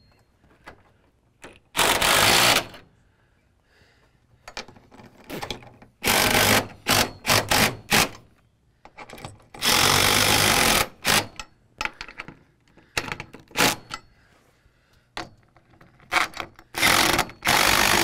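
Cordless impact driver with a half-inch hex-head bit driving lag screws into the shed's wooden wall to hang a barn-door track. It runs in about five short bursts of hammering, each half a second to a second long, with pauses between.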